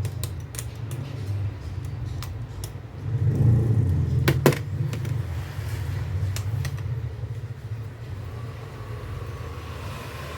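Steady low rumble of a motor vehicle's engine running, with a few sharp metallic clicks and a louder knock about four and a half seconds in, typical of tools and starter parts being handled.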